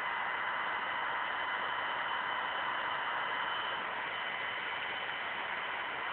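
Alienware M17x laptop's cooling fan running hard: a steady rushing hiss with a thin, steady whine on top, easing off slightly about four seconds in.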